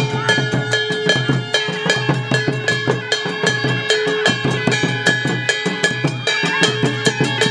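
Soura tribal dance music: hand-held frame drums beaten with sticks in a fast, steady rhythm, with held pitched tones sounding over the drumming.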